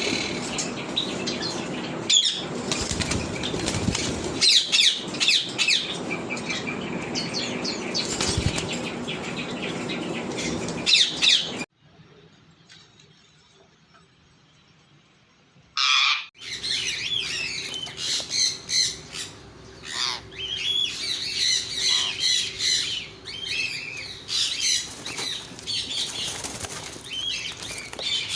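Many caged parrots chirping and chattering over one another, with wing flapping and rustling. The sound drops away for about four seconds midway and comes back with a loud, sharp squawk.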